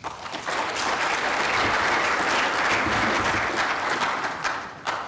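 Conference audience applauding at the end of a talk. It swells within half a second, holds steady for about four seconds, then tapers off.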